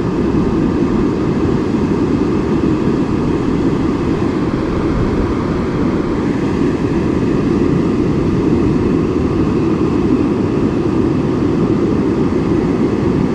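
Steady, even rushing noise of surf and wind on the beach, heaviest in the low end, with no distinct events.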